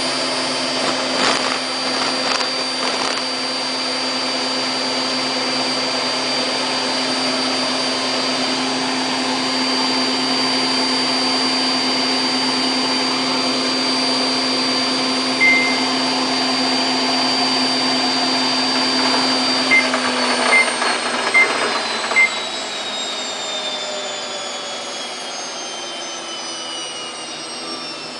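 Samsung WF8804RPA washing machine drum spinning at its top speed of 1400 rpm, a steady motor whine over the rush of the drum. A single beep comes about halfway, then four quick control-panel beeps, after which the whine falls steadily in pitch as the drum spins down.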